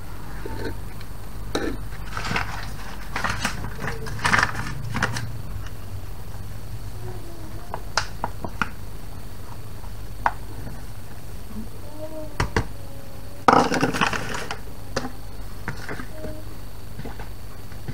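A spoon scraping flour out of a small bowl into cake batter and folding it in, with scattered scrapes and taps against the bowls. The loudest scraping and rattling comes about 13 seconds in.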